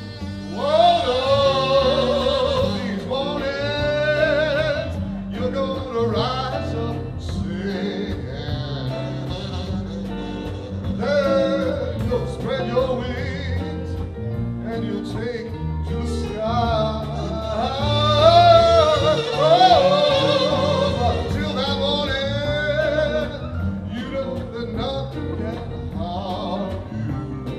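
A fusion band playing traditional Pakistani music mixed with rock and jazz: a wavering, heavily ornamented lead melody over a steady stepping bass line, swelling loudest about a second in and again two-thirds of the way through.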